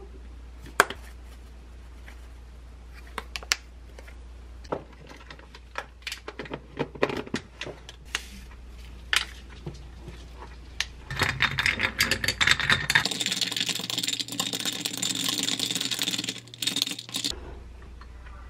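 Scattered light clicks and taps of a plastic ketchup bottle and tableware, then, from about eleven seconds in, ice cubes clinking and rattling in a tall glass for about six seconds as berry kombucha powder is mixed into the iced water.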